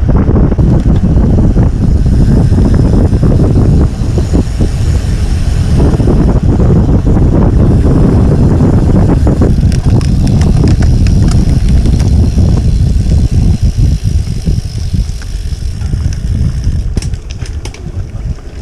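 Wind buffeting the camera's microphone while a road bike rolls along at speed, with rumble from the tyres on the road. It eases off near the end as the bike slows, with a few light clicks.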